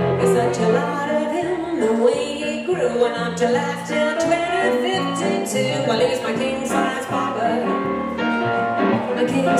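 Live blues played by a duo on archtop hollow-body electric guitar and stage keyboard, with a bass line stepping along underneath and singing over it.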